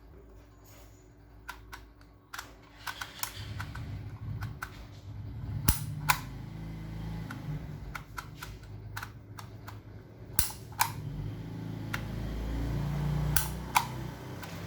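Dymo embossing label maker clacking as letters are pressed into the plastic tape: loud sharp clacks in pairs about half a second apart, three times, with softer clicks between them as the letter wheel is set.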